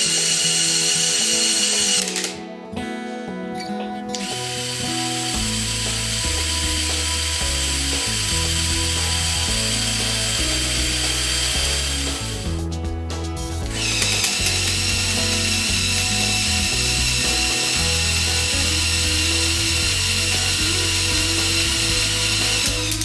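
Small electric motors and plastic gearing of a Mould King 13107 brick-built crane whining steadily as they drive the boom down and in, in three runs with short pauses about two and twelve seconds in. Background music plays throughout.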